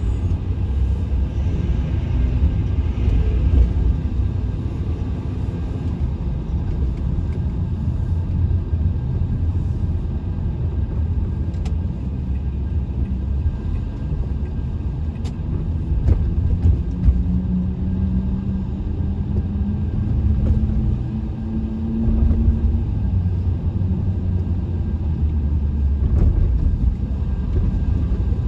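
Steady low rumble of a road vehicle being driven. An engine tone rises slowly about two-thirds of the way in, then fades back into the rumble.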